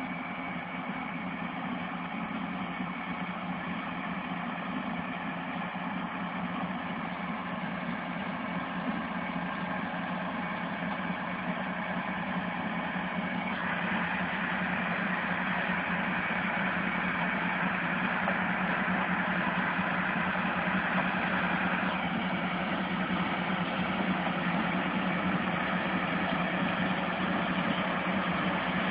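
Massey Ferguson 4355 tractor's diesel engine running steadily under load while driving the trailed SIP Tornado 80 corn harvester through a standing row, growing gradually louder as it comes closer. A brighter rushing noise joins in for several seconds around the middle.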